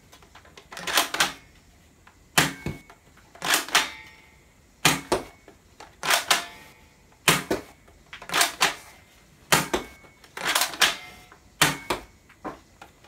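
Plastic Type 95 rubber-bullet toy rifle being primed with its charging handle and fired shot after shot: a string of sharp plastic clacks, about one a second, some of them doubled.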